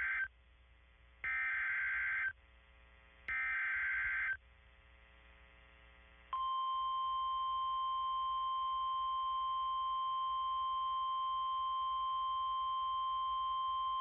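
NOAA Weather Radio emergency alert received over the air: the last two bursts of the SAME digital header, warbling data tones about a second each with a second's pause between, encoding a severe thunderstorm warning. About six seconds in, the steady 1050 Hz weather radio warning alarm tone starts and holds, signalling that a warning message follows.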